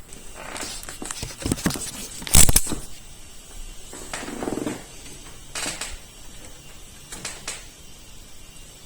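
A few scattered clicks and knocks, the loudest a sharp knock about two and a half seconds in, with a short pitched sound around four and a half seconds.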